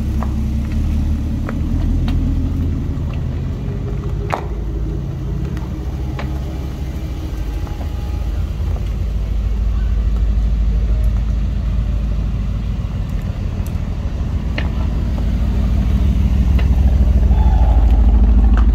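Deep, steady engine rumble of an Aston Martin moving at walking pace, growing louder as a Vantage creeps past close by near the end.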